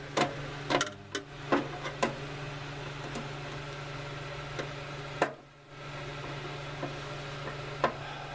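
Scattered light clicks and knocks of a long screwdriver working on screws inside the metal casing of a tankless water heater. They come several times in the first two seconds, then once about five seconds in and once near the end.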